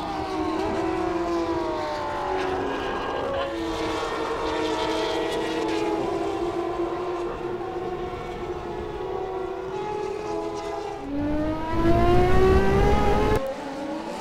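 Turismo Carretera race car engines at racing speed, the pitch gliding down as the cars brake and shift, then rising again as they accelerate. Near the end a louder, deeper passing rumble cuts off suddenly.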